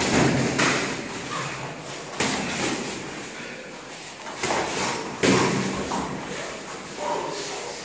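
Gloved punches and kicks landing during kickboxing sparring: a few sharp thuds and slaps a second or two apart, ringing in the large room.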